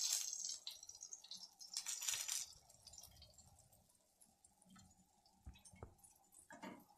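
Faint sizzling of chicken skewers in a hot oiled pan, in two short spells in the first few seconds, then quiet handling with a few light clicks as a metal skewer is laid down.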